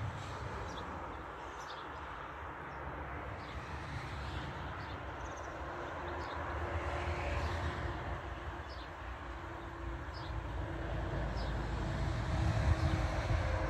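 Distant engine rumble in the open air, with a faint steady hum coming in about halfway through and scattered faint bird chirps.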